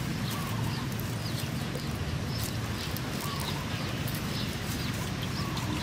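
Garden ambience: a steady low rumble with many short, high chirps scattered through it.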